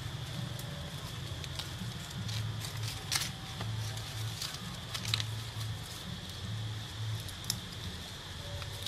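Outdoor ambience under trees: a steady high insect drone over a low rumble, with scattered light clicks and crackles throughout, the sharpest about three, five and seven and a half seconds in.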